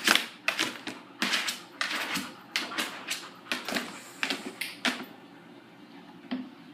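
A dog working at a toy to get its bone out: quick, irregular clicks and knocks that stop about five seconds in, with one more click near the end.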